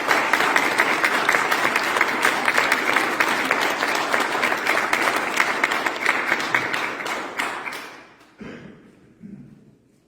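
Audience applauding, many hands clapping at once, then dying away about eight seconds in.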